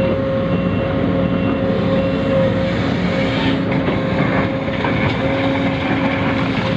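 Radio-controlled model truck running with a steady whine, and a reversing beeper sounding in short, evenly spaced beeps that stop about two seconds in.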